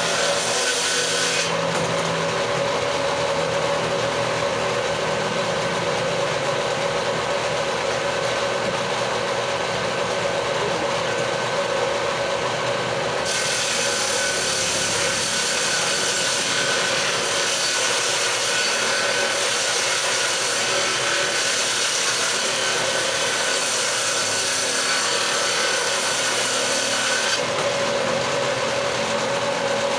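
Electric woodworking power tool running steadily while cutting a wooden door-jamb piece, a continuous machine whine with the hiss of the cut. The upper hiss thins about a second in, comes back about halfway through, and thins again near the end as the load on the cut changes.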